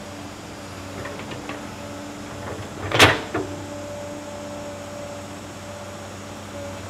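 Hydraulic excavator's diesel engine running steadily with a hydraulic whine as the bucket digs into the pit. About three seconds in there is a sharp clank, with a lighter one just after, and a few faint clicks before it.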